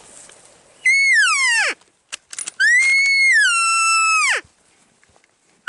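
Elk calling: two high, whistling bugle-like calls, each held and then gliding steeply down at the end. The second call is longer, a few sharp clicks fall between them, and another call begins at the very end.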